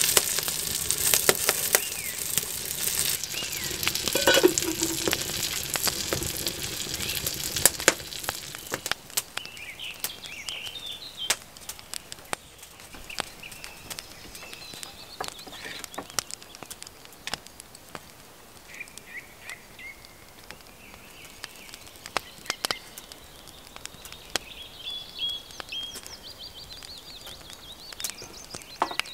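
Apple fritters sizzling and crackling as they fry in a pot over a wood fire. The sizzle dies away after about eight seconds, leaving a quieter stretch with birds chirping now and then and a few light ticks.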